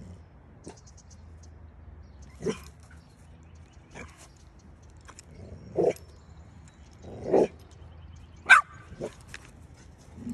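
A dog barking in short single barks, four or five of them a second or two apart. The last, near the end, is the loudest and highest-pitched.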